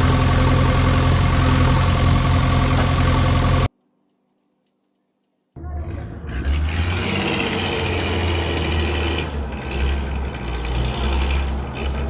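A steady motor or engine sound that cuts off suddenly about four seconds in; after a short silence a second, lower engine-like running sound starts and carries on.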